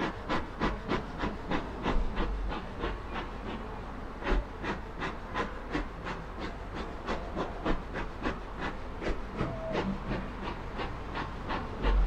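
Bee smoker's bellows pumped repeatedly over an open beehive, a steady run of short puffs of air, about three or four a second.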